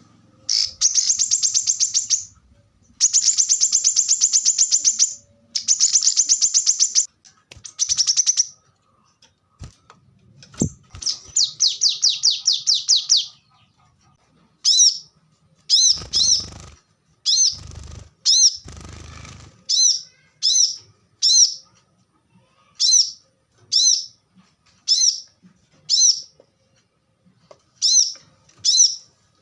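Brown-throated sunbird (kolibri kelapa) singing: several loud, fast, high trills in the first half, then sharp short two-note chirps repeated about once a second. A few dull rustling bursts come between the chirps just past the middle.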